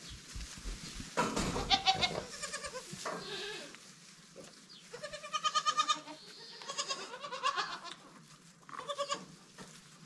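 Goats bleating in a pen: about five loud, quavering bleats, some running into each other, with short pauses between them.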